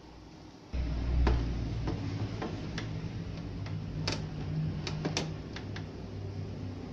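Light clicks and taps from a small circuit board being handled and turned over in the hands, about nine scattered clicks starting about a second in, over a low steady hum.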